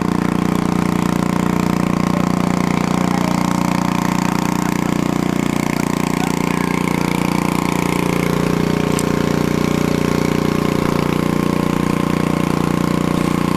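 A vehicle engine idling with a steady, even hum.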